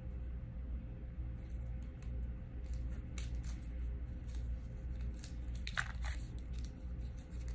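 Rummaging through a collection of dog hair bows: small clicks, crackles and rustles of handling, with a short squeak about six seconds in, over a low steady hum.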